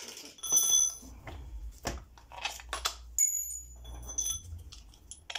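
Steel 16 mm SDS masonry drill bit clinking and clicking as it is handled and fitted into an SDS drill's chuck, with a few sharp knocks and short high metallic rings, the clearest about half a second in and again about three seconds in.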